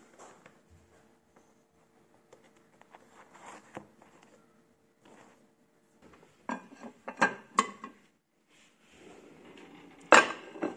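Kitchen drawer pulled open with a few sharp clacks and rattles, then a ceramic plate set down on the countertop with one loud clack near the end. Before that, only soft handling of the sandwich ingredients.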